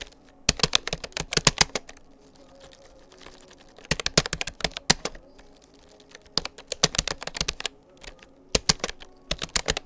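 Rapoo computer keyboard being typed on in quick runs of keystrokes, four bursts of rapid clicks with short pauses between them.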